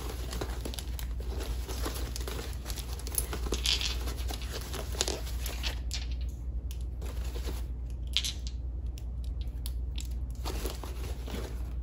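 Plastic and foam packing wrap crinkling and tearing as small wrapped crystal carvings are unwrapped by hand. It comes in irregular crackles with a few short pauses in the middle, over a steady low hum.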